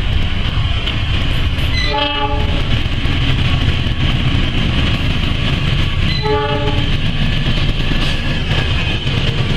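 Diesel locomotive horn sounding two short blasts about four seconds apart, over the steady rumble and wheel clatter of a freight train passing close by.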